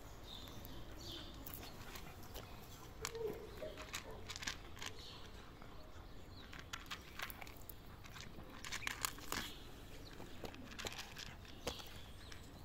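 Cat eating dry kibble: irregular, faint crunches of the biscuits being bitten and chewed, coming in clusters with short pauses between.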